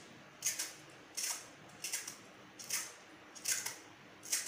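Hand-held vegetable peeler scraping the skin off a raw potato in short, regular strokes, about one every three-quarters of a second.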